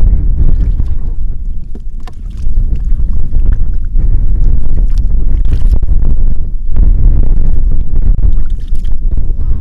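Wind buffeting the microphone: a loud, gusting low rumble that eases off briefly about two seconds in, with a few faint clicks.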